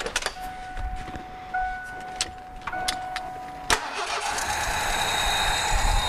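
1987 Ford F-150's V8 being started. The starter cranks with a steady whine for about three and a half seconds, then the engine catches and runs. It has two cylinders (7 and 8) misfiring, and cylinder 8's injector is unplugged for a noid-light pulse test.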